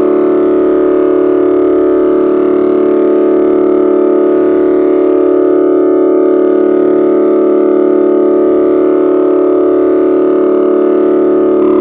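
Loud, steady electronic droning tone with many overtones, holding one pitch throughout, with a slight step up in level near the end.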